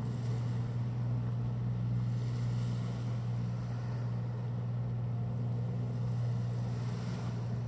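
Motorboat engine running at speed with a steady low drone, over an even hiss of wind and water.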